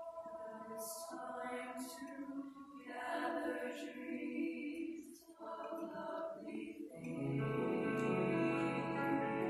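Treble choir of girls' voices singing a choral piece in parts, with crisp 's' consonants sung together. The singing thins and dips about five seconds in, then grows fuller and louder about seven seconds in.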